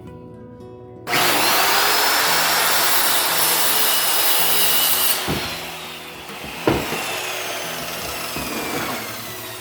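Electric circular saw starts about a second in and cuts through a board for about four seconds, then its motor winds down with a falling whine after the trigger is let go. A single knock comes partway through the wind-down.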